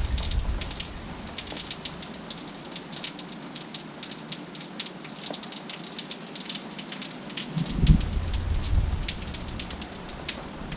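Heavy rain falling and pattering on surfaces, with a steady hiss and many small drop impacts. A low rumble swells at the start and again from about eight seconds in.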